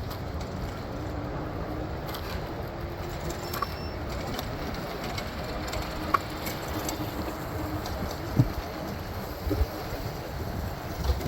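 City street traffic heard from a moving electric scooter: a steady hum of vehicles, with a few sharp knocks and clacks, the loudest about eight seconds in.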